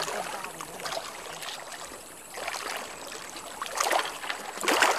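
Swarm of small fish splashing at the water surface as they fight over freshly cast bait: a crackling patter of many tiny splashes that swells in short spells, loudest about four seconds in and near the end.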